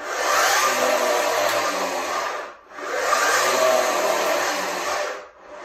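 Handy Gym portable flywheel trainer whirring as its rope is pulled out and rewound during squats: two long strokes with a short break between, the whir rising and falling in pitch within each.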